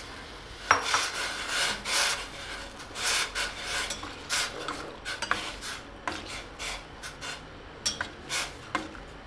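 A spoon stirring vermicelli in hot water, scraping against the bottom and sides of a stainless steel saucepan in an irregular run of rasping strokes, starting about a second in.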